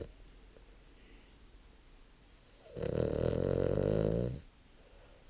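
Snoring: one loud, long snore starting a little under three seconds in and lasting under two seconds, low-pitched, after the tail end of a previous snore right at the start.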